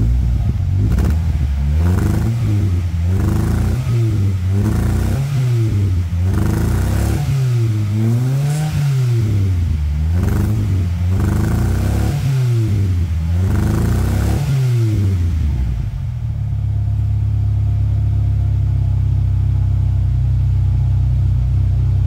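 Toyota Corolla 1.8 four-cylinder engine, heard at the tailpipe, revved again and again in quick blips for about fifteen seconds, then dropping back to a steady idle.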